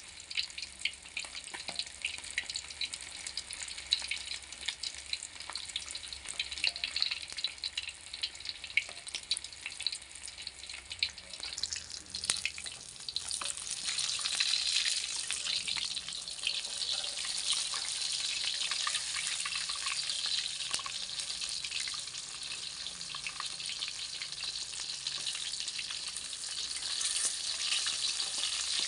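Pieces of fish deep-frying in hot oil in a wok, the oil crackling and spitting. About twelve seconds in, the sizzle grows louder and denser.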